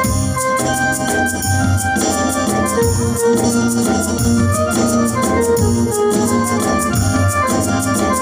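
Live band music: an electronic keyboard with an organ-like sound carrying held melody notes over a steady drum beat and bass.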